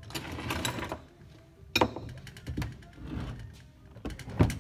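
Metal engine parts handled on a workbench: a rustling scrape, then a sharp click about two seconds in and several dull clunks, the loudest near the end, as a crankcase half is lifted off a Vincent Black Shadow V-twin's crankshaft flywheels.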